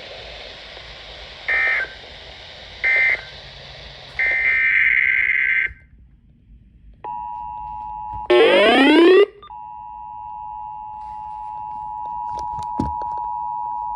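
Emergency Alert System tones: three short bursts of screechy digital SAME data, then a pause, then the steady two-tone attention signal. About a second after the attention tone starts, a loud rising sweep cuts in for about a second before the steady tone resumes.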